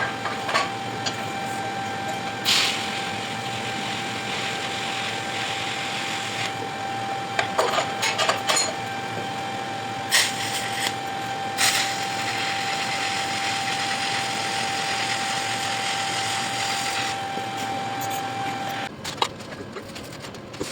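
Restored bench grinder running steadily, its motor giving a constant whine over a hiss, with a few sharp clicks. It stops about nineteen seconds in.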